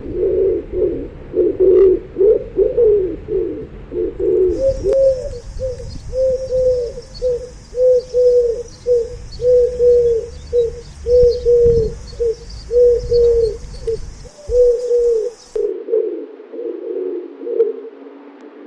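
Pigeons cooing: several overlapping throaty coos, then one bird's regular run of short, rounded coos at about one and a half a second, and overlapping cooing again near the end.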